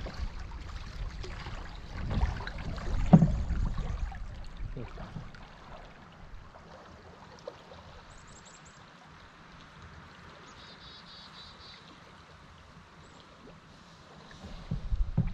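Paddle strokes and water sloshing against an Esquif Echo solo canoe, with low knocks of the paddle on the hull and one sharp knock about three seconds in. Then the canoe glides with only a faint steady rush of river water, until paddle strokes splash and knock again near the end.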